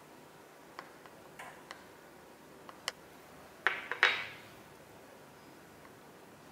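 Wooden spoon clicking against a small glass bowl while stirring egg whites and honey. Scattered light taps, with a louder cluster of knocks about four seconds in.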